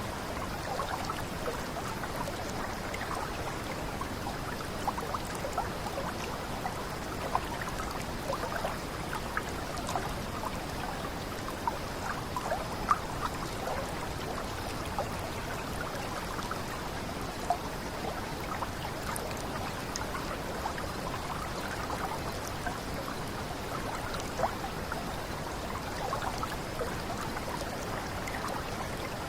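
Water running down a small cascade: a steady splashing and trickling, flecked with many small drips and splashes.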